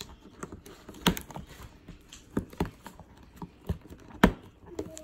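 Fingers tapping and picking at a cardboard box, giving a handful of scattered light knocks, the loudest a little past four seconds in.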